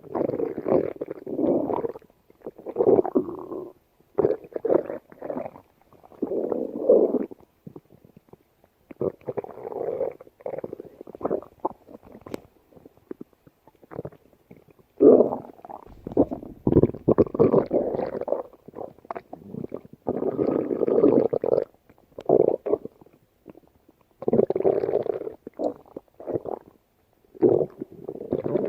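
A woman's stomach growling and gurgling in a string of irregular bursts, each lasting up to about two seconds, with short pauses between them.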